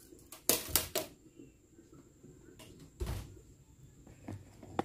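A few sharp knocks and clunks of kitchenware handled at a stainless steel sink: three quick knocks about half a second in, a heavier clunk about three seconds in, and lighter taps near the end.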